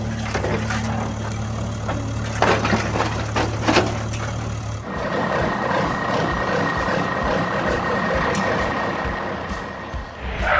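Truck engine sound effect running steadily, with a few knocks and clicks. About five seconds in it changes to a higher-pitched steady mechanical sound.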